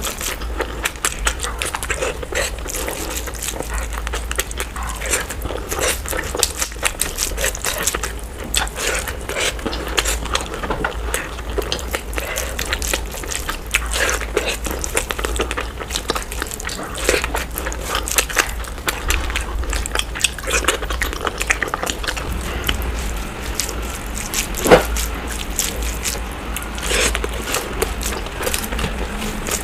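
Close-miked eating sounds played at double speed: rapid wet chewing and smacking, along with hands squishing and mixing rice and curry, as a dense run of quick clicks. One louder sharp click comes about three quarters of the way through.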